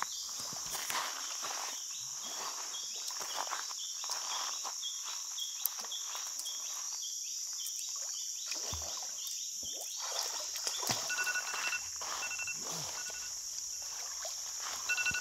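Steady high-pitched insect chorus with scattered rustles and small knocks. From about eleven seconds in, an electronic alarm beeps in short repeated pips.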